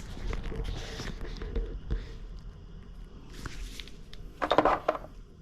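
Handling noises: light knocks and rustles as small parts are picked up and moved. About four and a half seconds in comes one short, louder rustle or scrape.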